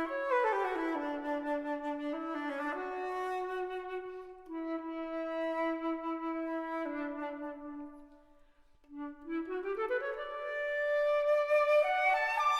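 Instrumental background music: one melodic line played on a wind instrument. It starts with falling runs and moves to held notes. It breaks off briefly about eight and a half seconds in, then climbs in rising runs.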